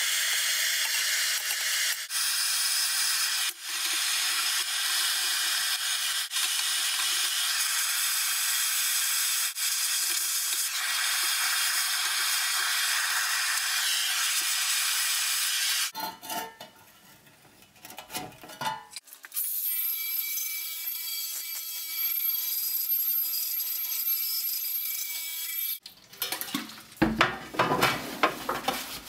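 Small handheld gas torch's flame hissing steadily while heating a steel strap, for about sixteen seconds. Then come a few scattered light clicks, and another long steady hiss. Near the end a cloth makes quick rubbing strokes over the sheet-metal dustpan.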